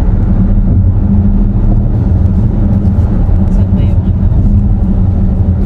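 Car driving at highway speed, heard from inside the cabin: a loud, steady low rumble of road and engine noise with a constant droning tone.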